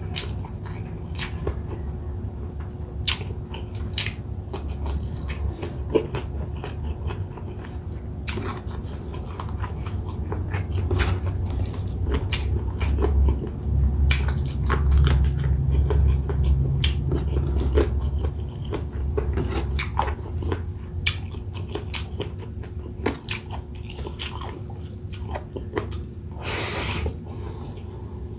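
Close-miked chewing and biting of grilled chicken inasal and rice, with many small wet clicks, heavier chewing in the middle, and a short louder noise near the end.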